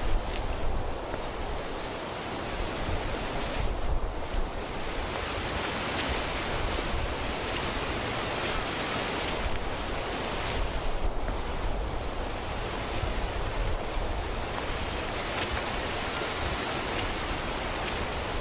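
Wind rushing steadily and buffeting the microphone, with an uneven low rumble under an even hiss.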